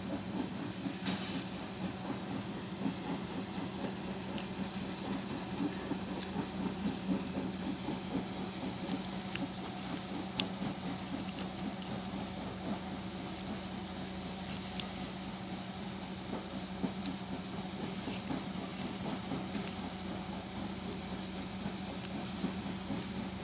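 Dry roselle (Hibiscus sabdariffa) seed pods crackling and rustling as fingers pick them apart and rub out the seeds: many small irregular clicks and crisp scratches, one sharper snap about ten seconds in, over a steady low hum.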